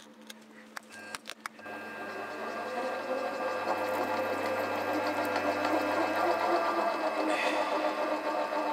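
Milling machine spindle motor starting after a few clicks, about a second and a half in, and running steadily with a whine while a 6 mm machine tap cuts a thread into a mild steel clamp blank.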